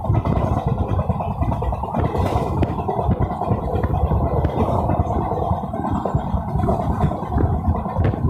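Train running along the track: a steady, loud rumble of wheels on rails with occasional faint clicks.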